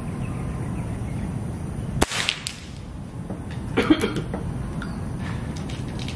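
A single sharp air-rifle shot about two seconds in, followed by a fainter short crack. A cluster of short clicks and knocks comes near the four-second mark.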